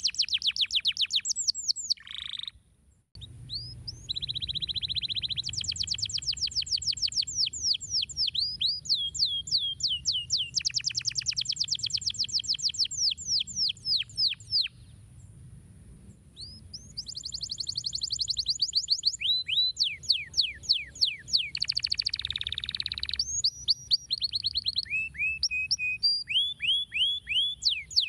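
Domestic canary singing: long fast trills of repeated down-slurred whistled notes, the phrases changing in speed and pitch, with two short pauses.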